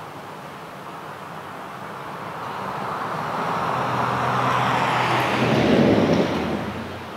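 A road vehicle passing close by: engine and tyre noise grows louder over a few seconds, is loudest about six seconds in, then falls away quickly.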